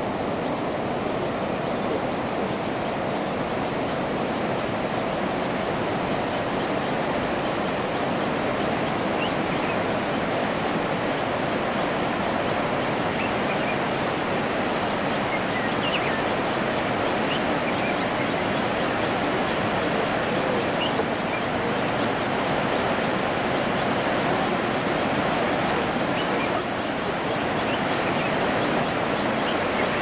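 Steady rush of falling and flowing water from Victoria Falls and the Zambezi River in its gorge, an even, unbroken noise. A few faint high chirps come through about halfway in.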